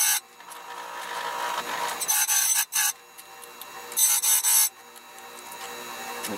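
A chainsaw chain being sharpened tooth by tooth: two harsh grinding-rasping strokes about two seconds apart, with a fainter sound building between them.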